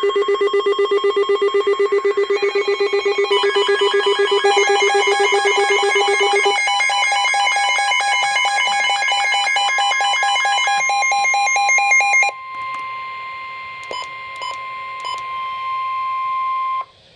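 Electronic emergency alert tones ahead of a severe thunderstorm warning broadcast. First comes a rapid pulsing, ringing tone with several pitches stacking up. About twelve seconds in, the pulsing stops and leaves one steady alert tone with a few faint clicks, which cuts off abruptly just before the end.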